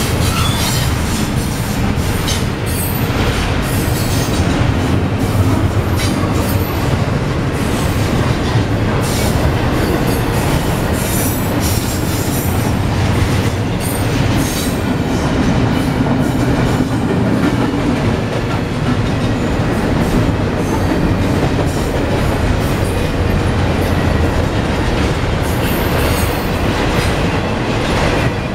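Intermodal freight train's cars, double-stack container well cars and trailers on flatcars, rolling steadily past close by: a loud, steady rumble of steel wheels on rail with repeated clicks and clatter as the wheels cross rail joints.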